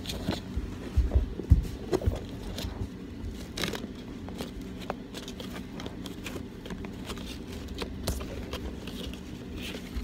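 Hands untying and pulling a ribbon off a cardboard gift box: rustling and scraping of the ribbon against the box. A few sharp knocks and thumps come about a second in, and lighter clicks follow.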